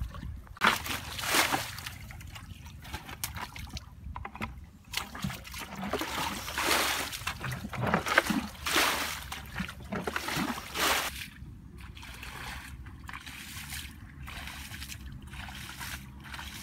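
Muddy ditch water splashing and sloshing in irregular bursts as a fishing net is worked by hand in it. The splashing dies down about two-thirds of the way through, leaving a low steady rumble.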